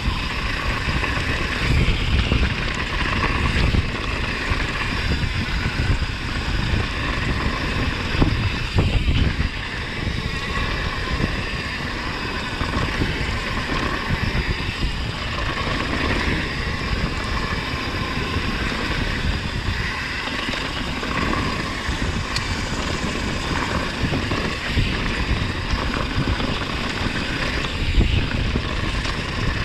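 Wind rushing over the microphone of a camera riding a mountain bike downhill, with the rolling rumble and rattle of the bike on a dirt trail.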